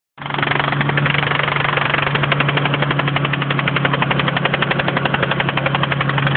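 Mitsubishi 3000GT VR4's twin-turbo V6 idling with a rapid, steady metallic knock. The knock came on under hard driving with the oil level full, and the uploader suspects a bent or broken connecting rod.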